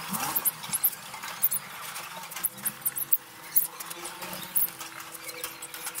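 Small cage birds chirping: many short, high chirps scattered throughout, over a faint steady low hum.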